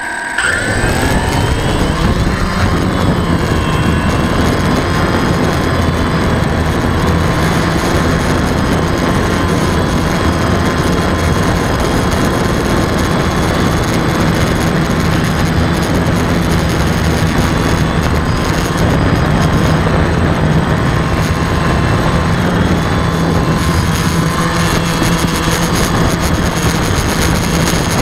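DJI quadcopter's electric motors and propellers spinning up with a quick rising whine, then running steadily as the drone lifts off and flies, wavering a little in pitch. Heard close up from a camera mounted on the drone.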